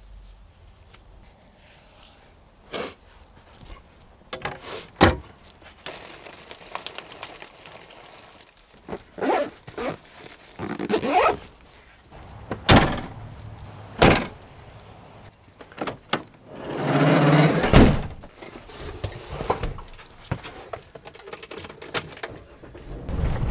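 Packing up inside a camper van: scattered thunks, knocks and rustles of bags, cupboards and doors, with one longer scraping rush about three-quarters of the way through.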